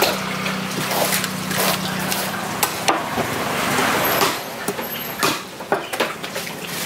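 A large knife cutting and chopping through a fish on a wooden chopping block: scattered sharp knocks and scraping of the blade against the block. A steady low hum sits under it and stops about two and a half seconds in.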